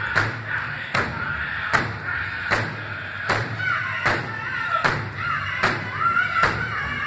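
Powwow big drum struck in a steady beat, a little over one beat a second, by several drummers, with high-pitched powwow singing that comes in strongly about halfway through.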